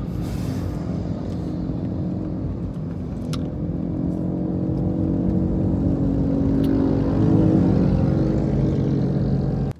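Car engine and tyre noise heard from inside the cabin while driving, a steady hum that grows louder about two-thirds of the way in as the car accelerates.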